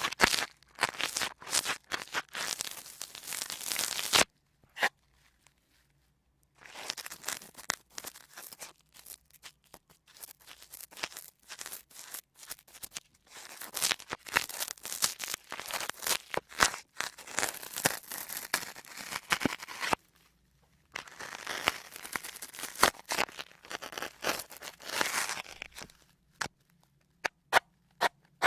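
Sponges handled close to the microphone in several stretches of dense crackling and crunching, with short silent pauses between them. Near the end only a few separate clicks.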